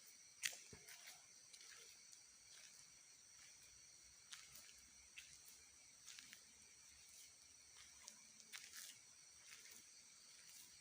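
Faint outdoor ambience of insects chirring steadily on one high note, with scattered small clicks and ticks, the sharpest about half a second in.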